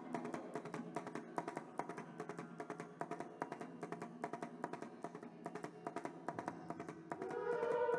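Carnatic dance-ensemble percussion playing a quick, busy rhythm of sharp strokes over a steady drone, with a held melodic note coming in near the end.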